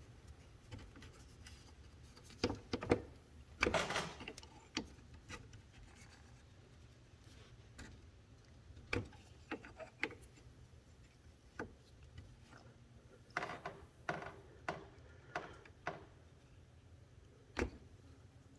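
Scattered light clicks and metallic knocks at irregular intervals as a 10 mm Allen wrench is worked on the plastic radiator drain petcock to start draining the coolant.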